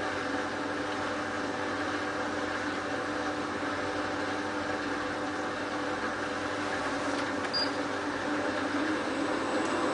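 Hotpoint Ultima WT960 washing machine running, its drum motor giving a steady hum with several held tones, getting a little louder near the end.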